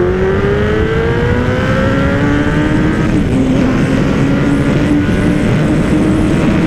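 Suzuki GSX-R 1000 inline-four motorcycle engine accelerating: its pitch rises for about two seconds, drops with an upshift about three seconds in, then holds steady. Heavy wind rush on the rider's microphone underneath.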